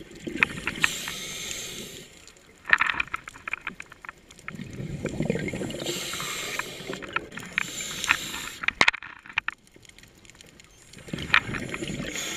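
Scuba diver breathing through a regulator underwater: high, hissing inhalations alternate with low, rumbling, crackling bubble exhalations, about three breaths.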